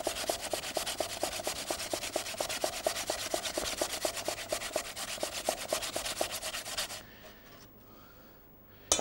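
Raw peeled potato being grated by hand on a metal grater: quick, even scraping strokes that stop about seven seconds in. A single sharp knock comes at the very end.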